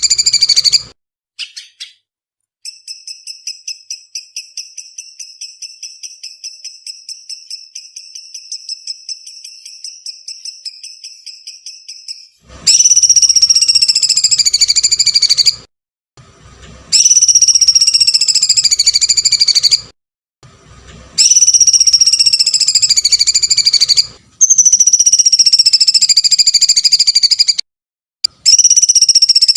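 Songbird calls: a fast trill of short high notes for about ten seconds, then loud shrill, slightly falling calls of about three seconds each, repeated five times with short breaks between them.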